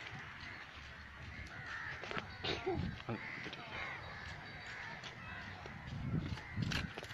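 Crows cawing.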